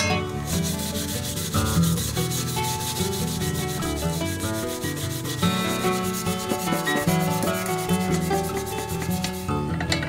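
Iron paella pan being scrubbed by hand with rapid back-and-forth strokes, scouring off the burnt-on black crust left from cooking over a wood fire.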